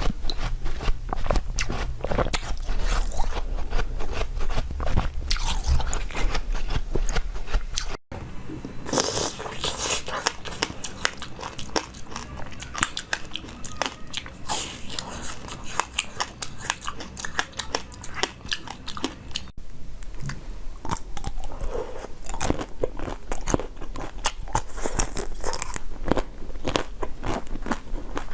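Close-miked eating: biting and chewing with a dense, crackly crunch, typical of frozen treats or jelly being eaten. The sound breaks off abruptly twice where the recording is cut.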